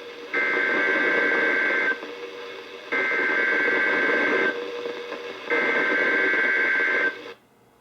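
NOAA Weather Radio SAME digital data bursts heard through a weather radio's speaker. There are three harsh, buzzy two-tone bursts, each about a second and a half long and about a second apart, with radio hiss between them. This is the coded header that opens a new Emergency Alert System message. The sound drops away after the third burst.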